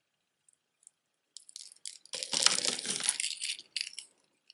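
Costume jewelry clinking and rattling as it is handled, starting about a second and a half in, loudest near the middle, and ending in a few light clicks.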